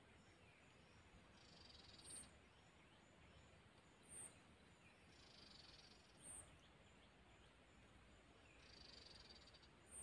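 Near silence: faint outdoor ambience with a short, high chirp repeating about every two seconds and a longer, hissy call every three to four seconds, from small unseen animals.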